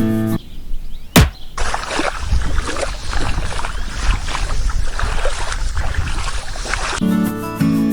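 A sharp click about a second in, then several seconds of water splashing and sloshing, with background music before and after.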